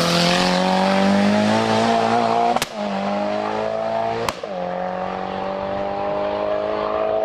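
Race car engine accelerating hard up a hill climb, pitch climbing steadily, with two quick upshifts about a second and a half apart, each marked by a sharp crack and a drop in revs before it pulls up again.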